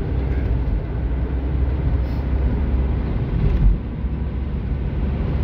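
Road noise inside a moving car's cabin: a steady low rumble of engine and tyres, with one brief louder low thump a little past halfway.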